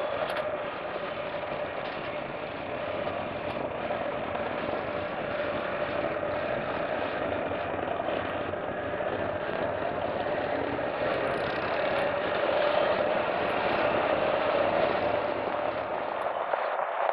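Motorcycle riding steadily at road speed: a continuous engine and road rush with a steady hum, growing a little louder past the middle.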